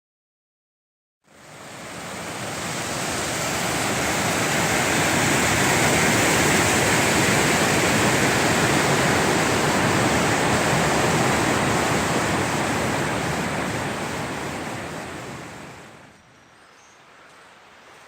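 Steady rush of a waterfall's falling water, swelling in after a second of silence and fading down to a much quieter background about fifteen seconds in.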